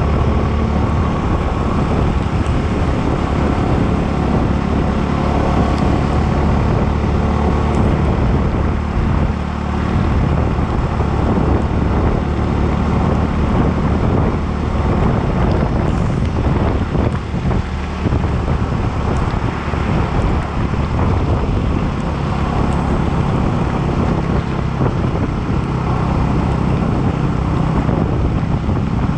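Yamaha sports motorcycle running at a steady cruising speed on a wet road, its low engine note under heavy wind noise on the microphone.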